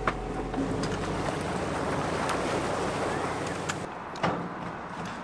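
Boat being launched off its trailer at a ramp: a pickup truck's engine idles low for about the first second, then a steady rushing wash of water follows. There is a sharp click near the start and another about four seconds in.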